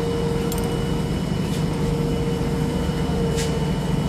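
Steady hum of laundromat washing machines and tumble dryers running, a held mid-pitched tone over a low rumble, with two short clicks, one about half a second in and one near the end.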